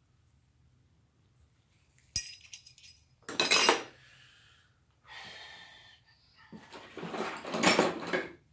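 Metal tools being handled on a table: a sharp ringing clink about two seconds in, then a louder clatter, a scrape, and a longer rattling clatter near the end.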